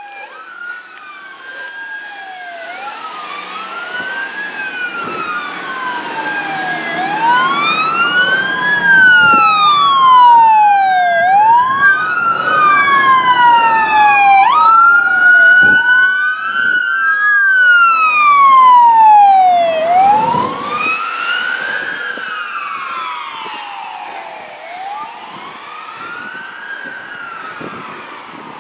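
Fire department sirens wailing, rising and falling every two to three seconds, with a second siren overlapping and a stretch of quick yelping sweeps about halfway through. The sirens grow louder as the fire chief's pickup and a fire engine pass, then fade as they move away.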